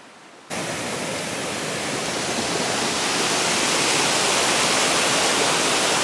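River rapids rushing over rocks: a steady, loud rush of water that cuts in suddenly about half a second in, after a brief faint hiss.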